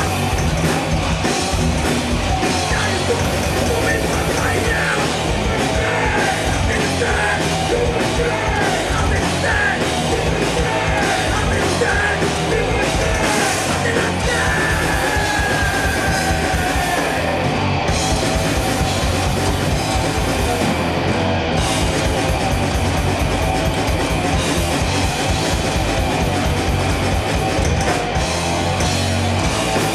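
A metal band playing live and loud: distorted electric guitars, bass and a pounding drum kit, with yelled vocals over the top.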